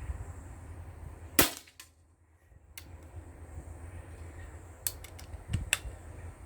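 Steyr LG110 pre-charged pneumatic air rifle firing a single pellet shot about a second and a half in, a sharp crack. A few lighter clicks come near the end, over a low steady rumble.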